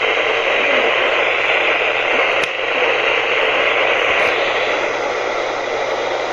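Steady hiss of an FM radio receiver with no clear signal coming through, with a single click about two and a half seconds in.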